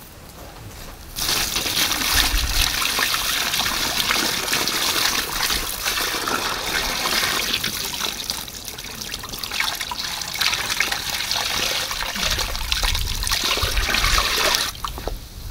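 Water poured from a bucket into a plastic tub over a pig's head, splashing and trickling steadily; the pour starts about a second in and stops shortly before the end.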